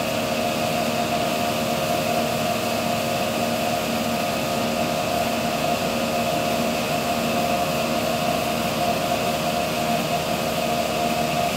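Rice husks blown through a pipe by a husk-pumping machine, rushing out of the spout into a boat's hold. A steady machine hum with a few held tones over an even hiss, unchanging throughout.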